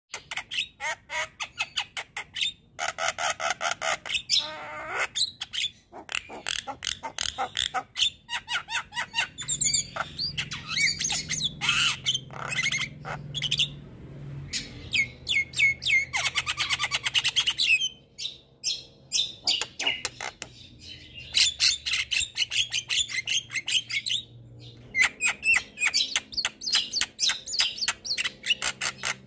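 Javan myna (jalak kebo) in full song: a long, varied run of fast dry clicking notes mixed with whistled phrases and harsh squawks.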